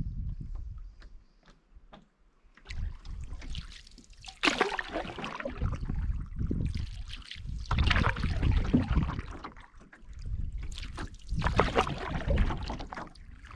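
Canoe paddle strokes in lake water: three swells of swishing and splashing, about every three and a half seconds, over a low rumble.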